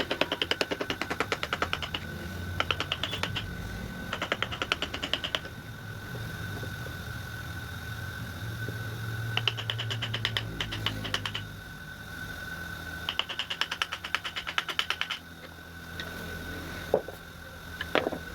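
Rapid tapping in repeated runs of one to two seconds, about a dozen taps a second, over a steady high whine, typical of wood being worked with a carving tool.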